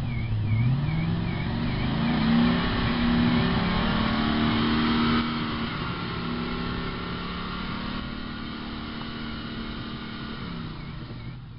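TVR Chimaera's Rover V8 revved up over the first couple of seconds and held at raised revs, then its engine speed and loudness ease down slowly towards idle through the rest.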